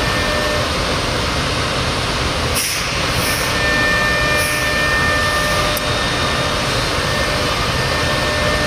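5-axis CNC router spindle milling a block, a loud steady machining noise with a faint high whine over it. There is a brief dip in the noise about two and a half seconds in.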